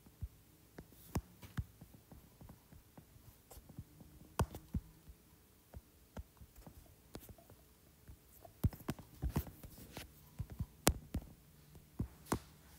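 Irregular taps of a stylus and fingertips on a tablet's glass screen, sharp little clicks at uneven intervals, coming thicker in the second half, over a faint low hum.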